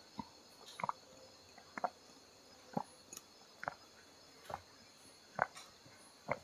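A person gulping down a drink from a glass mug in steady swallows, about eight gulps at roughly one a second.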